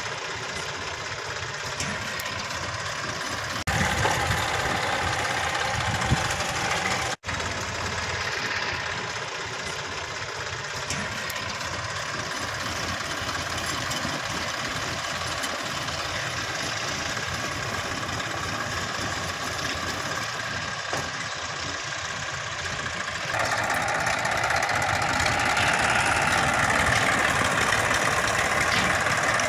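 Small red Massey Ferguson tractor's diesel engine running steadily as it pulls a rear-mounted implement through dry soil, with two abrupt breaks early on and louder near the end as the tractor comes close.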